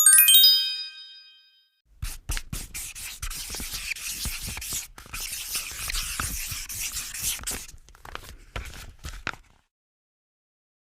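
A short sparkling chime, then about seven seconds of quick, scratchy scribbling strokes that stop suddenly.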